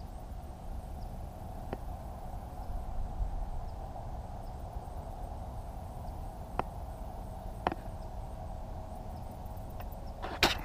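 Quiet outdoor background with a steady faint hum and low rumble, broken by a few isolated faint ticks. Near the end comes a short cluster of sharp clicks and rustling.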